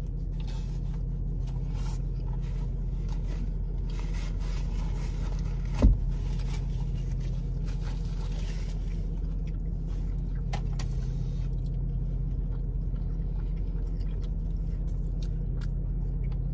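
Steady low hum inside a parked car with the engine running, under quiet chewing and small rustles of sandwich wrappers. One short dull thump about six seconds in.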